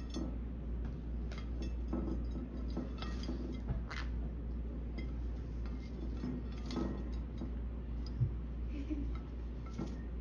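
Green-cheeked conure bathing in shallow water on a ceramic dinner plate: irregular small splashes and light clinks of beak and feet on the plate, over a steady low hum.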